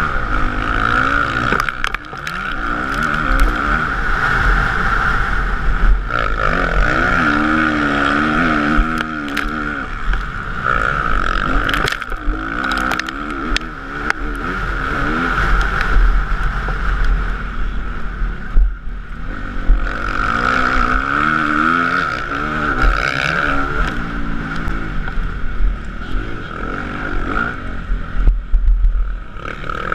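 Motocross bike engine heard from on board, its revs repeatedly rising and falling as the rider accelerates and shifts around the track, with occasional sharp knocks.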